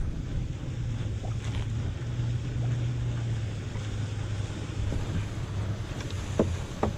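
A nearby motorboat's engine running with a steady low hum, over wind on the microphone and water around a small outrigger canoe. Two short knocks come near the end.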